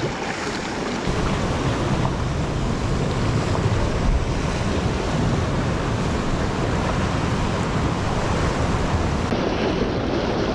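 Sea swell washing and breaking against the rocks below, with wind buffeting the microphone in a steady low rumble.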